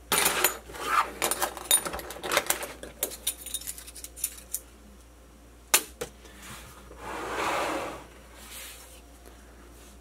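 Metal hub spacers and washers clinking together as they are gathered up by hand from a table: a quick run of light metallic clicks over the first three seconds. Later there is a single knock and a second-long soft rustling noise.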